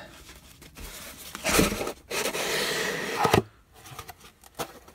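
A cardboard box of paper-wrapped penny rolls being turned over and lifted off the rolls. There is a thump about a second and a half in, then about a second of cardboard sliding and scraping, ending in a knock, and a few light clicks near the end.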